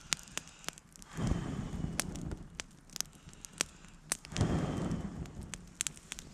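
Campfire crackling with sharp, irregular pops of burning wood. Two brief swells of rushing noise come about a second in and again just past four seconds.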